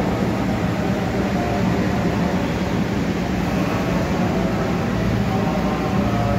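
Steady rumble and hum of a FUJI FES-T escalator running upward inside a busy commuter rail station, with train noise blended into the din.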